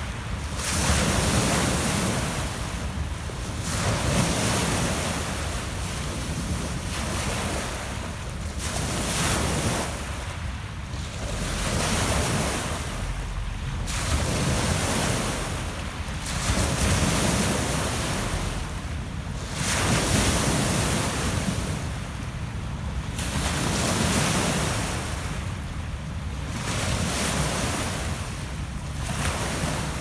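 Small Lake Ontario waves breaking and washing over a pebble beach. Each surge swells and fades about every two to three seconds.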